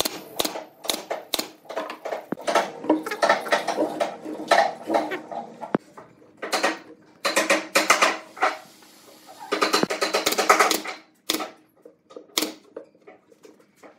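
Pneumatic nail gun, run off an air hose, firing nails into pine boards: a series of sharp shots in clusters, with gaps between. Background music plays under it.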